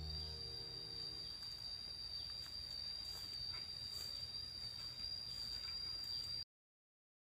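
A steady, high-pitched insect trill from the surrounding field, with a faint outdoor hiss. Background music fades out under it in the first second or so. The trill cuts off abruptly about six and a half seconds in.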